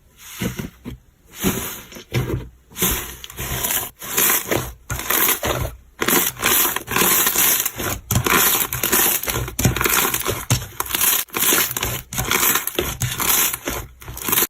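Slime being squeezed and pressed by hand, crackling and crunching in repeated bursts about two a second.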